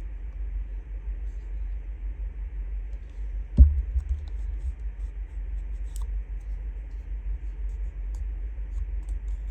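A steady low rumble, with a single sharp knock about three and a half seconds in as the plastic glue bottle is set down on the table, and a few faint clicks of paper being handled afterwards.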